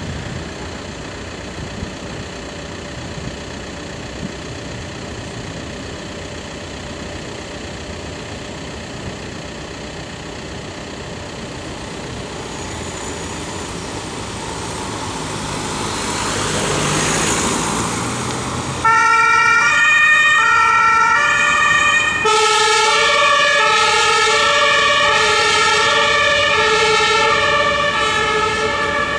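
Street and vehicle noise as an emergency doctor's car pulls out and drives past, swelling as it passes. About two-thirds of the way in, its German two-tone siren (Martinshorn) switches on and keeps alternating between a high and a low tone, loud and steady.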